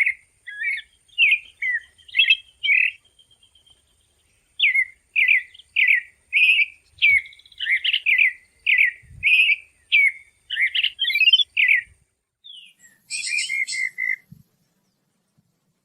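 A songbird singing a long run of short whistled notes and slurred phrases, with a short break about four seconds in. Near the end it gives a harsher, buzzier call, then stops.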